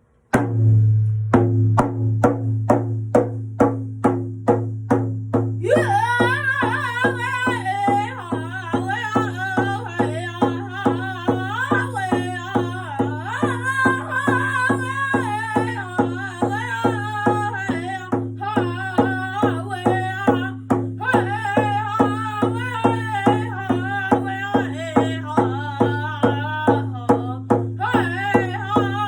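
A steady, even drumbeat, joined about six seconds in by a high voice singing a First Nations song over the drum.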